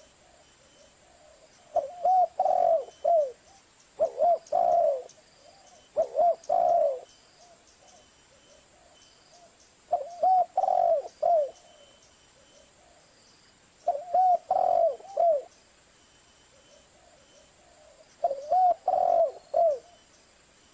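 Spotted dove (tekukur) cooing: six short phrases of three or four soft, arched coos each, repeated every two to four seconds with pauses between.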